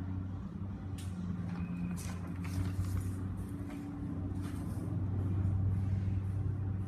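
Steady low background hum, with a few light clicks and taps scattered through.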